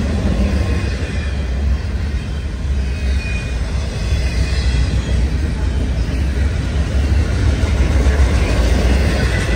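Double-stack intermodal freight train of loaded container well cars rolling steadily past: a continuous heavy rumble of wheels on rail.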